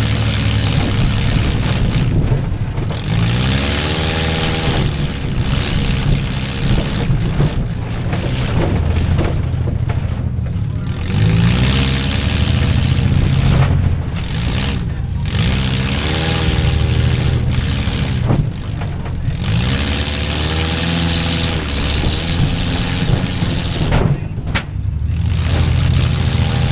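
Demolition derby van's engine revving hard over and over, heard from inside the cab, its pitch climbing and falling every few seconds as the driver accelerates, backs off and charges again. A sharp bang comes near the end.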